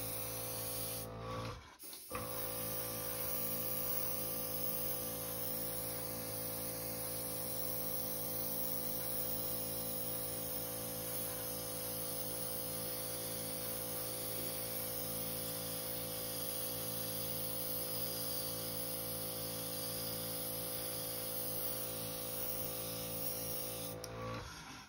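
Airbrush spraying gloss white paint, its small compressor running with a steady hum under the hiss of air and paint from the nozzle. The sound breaks off briefly just under two seconds in, then runs on steadily and stops just before the end.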